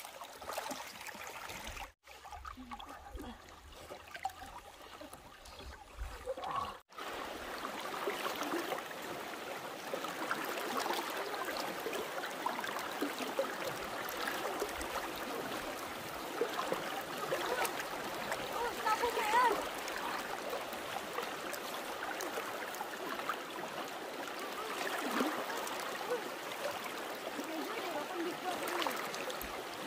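Floodwater flowing with a steady rush and small gurgles. The sound drops out briefly about 2 seconds in and again about 7 seconds in.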